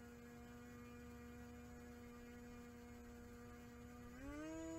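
Electric motor and propeller of a radio-controlled plane sitting on its launcher, running at low throttle with a faint steady hum. About four seconds in the pitch steps up as the motor speeds up.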